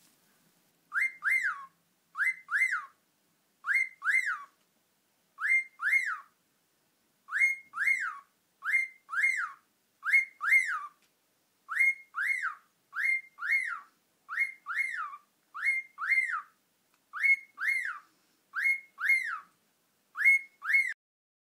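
Cockatiel calling: a repeated double chirp, each note a quick rise and fall in pitch, given about sixteen times at uneven intervals of roughly a second or two.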